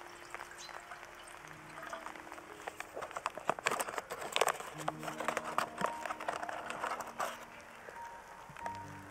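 Water trickles into a small metal kettle at first. Then a foil coffee pouch crackles sharply as it is torn open and handled for several seconds, over soft background music.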